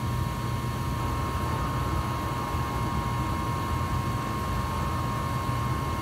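A 2003 Goodman 80% gas furnace running, its gas burners firing and its blower fan on: a steady low rumble and rushing air with a constant high whine on top.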